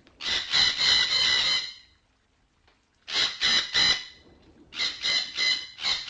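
Red-breasted parakeets giving harsh, squealing squawk calls in three quick bouts, each a run of notes at about three a second, with short quiet gaps between.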